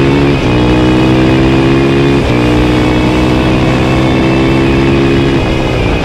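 Suzuki RM-Z450's single-cylinder four-stroke engine with an Akrapovic exhaust, pulling hard under acceleration, its pitch climbing with brief breaks about half a second and two seconds in as it shifts up. Near the end the throttle closes and the note drops away.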